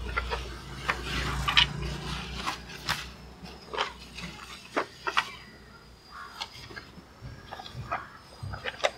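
Irregular sharp clicks and taps, one or two a second, of hand work on a rat trap. A low rumble fades out over the first couple of seconds.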